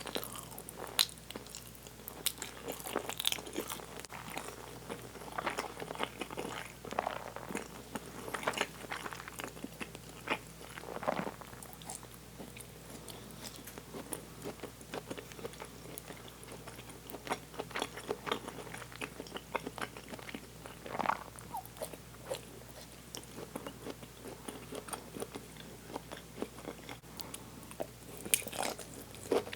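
A person chewing and biting a mi goreng noodle meal close to the microphone. Irregular short clicks of mouth and teeth come in busy spells, with quieter pauses between bites.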